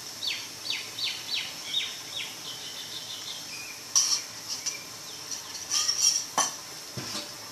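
A metal spoon clinks and knocks against a cooking pan as oil is spooned in, with several sharp clinks in the second half. Before that comes a run of quick, high, falling chirps, about three a second.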